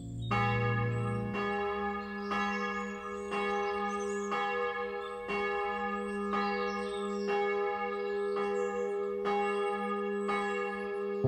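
A single church bell tolling about once a second, each stroke ringing on into the next at the same pitch.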